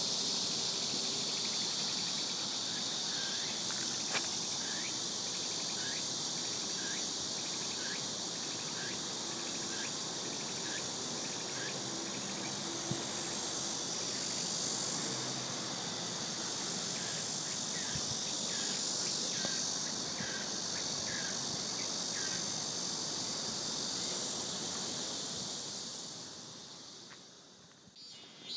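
Steady chorus of chirping insects, a dense high-pitched buzz with a fainter short chirp repeating about one and a half times a second; it fades out near the end.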